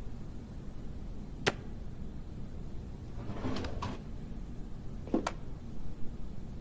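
An office desk drawer pulled open with a short scrape and a couple of clicks, between other sharp single clicks as a phone is handled and lifted out of it.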